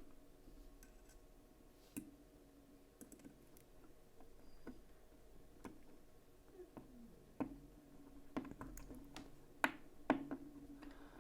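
Scattered light clicks and taps of small metal knife parts (scale, liner and screws) being handled and pressed together during reassembly of a folding knife, a few sharper clicks near the end, over a faint low hum that comes and goes.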